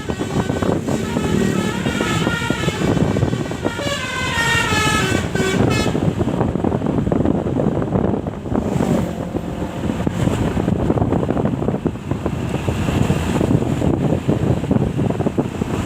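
A bus telolet horn, a multi-note musical air horn, plays a tune of several changing notes, some falling in pitch, for about six seconds. It then stops, leaving a steady low rumble of engine and road noise.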